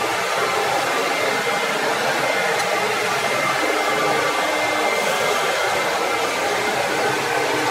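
CamVac CGV336-4 dust extractor running with both motors on: a steady, even rushing of air with a faint high whine. Underneath it, a wood lathe is turning a pen blank.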